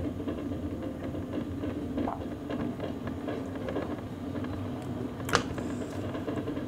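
Scooter in motion: a steady motor hum over a low rumble of the wheels on the pavement, with one sharp click a little past five seconds in.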